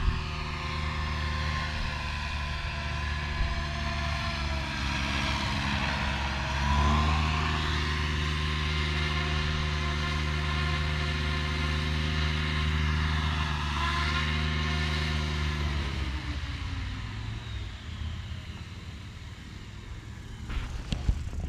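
Radio-controlled model helicopter running steadily with a whine of evenly spaced tones from its motor and rotor, its pitch shifting a couple of times, then fading away over the last few seconds.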